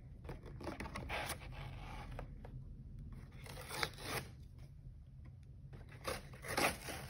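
Clear plastic and cardboard toy packaging being handled and pulled apart, crinkling and scraping in irregular bursts, loudest about four seconds in and again after six seconds.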